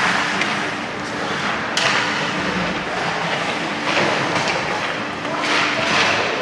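Ice hockey on the rink: skates scraping the ice and sudden knocks of stick, puck or bodies against the boards over a steady arena din. A longer scraping hiss near the end sounds like a skate stop.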